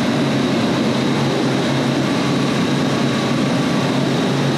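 Steady drone of refrigeration machinery running in a grocery store compressor room, a low hum under an even noise.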